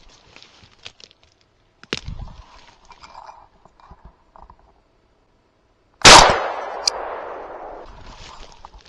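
A single shotgun shot about six seconds in, with its report ringing away through the woods over about two seconds. Before it come quieter footsteps and rustling through brush.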